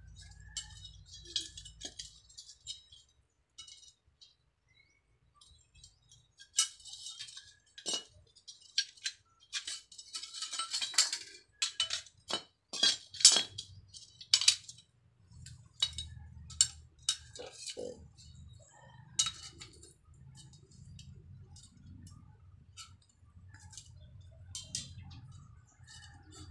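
Scattered metallic clinks and taps of steel angle-bar pieces being handled and struck with a hammer, busiest a third to halfway through. A low hum sits underneath in the second half.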